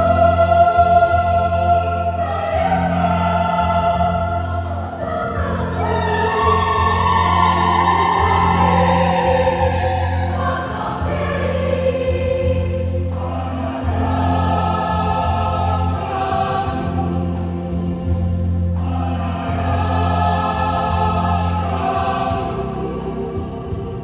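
Youth church choir singing a Sumbanese-language hymn in harmony. Long chords are held and shift every few seconds over a steady low note held underneath.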